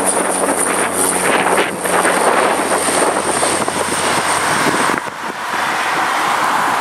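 Cessna 208 Grand Caravan's single turboprop at takeoff power, a steady propeller drone with a high turbine whine, over wind noise on the microphone. About five seconds in, the level dips briefly and the whine fades, leaving a rushing drone as the plane climbs away.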